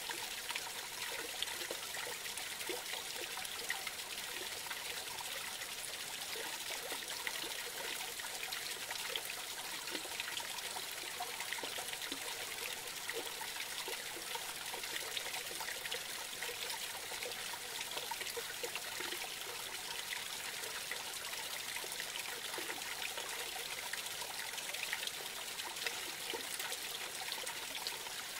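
Small forest creek spilling over a low drop into a shallow pool: a steady trickle and splash of running water.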